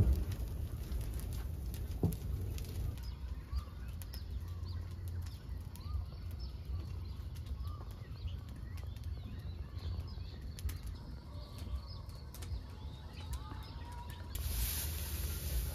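Straw fire burning with scattered crackles over a steady low rush. Small birds chirp faintly in the background, and a louder hiss joins in near the end.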